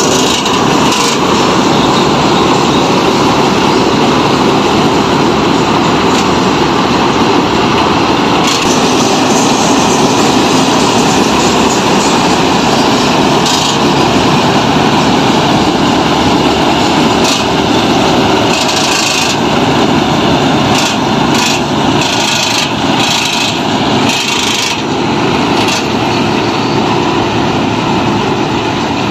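KS Combine harvester working through a paddy crop: its engine and cutting and threshing gear running as one loud, steady din. A run of short rattles and clicks sounds between about 17 and 25 seconds in.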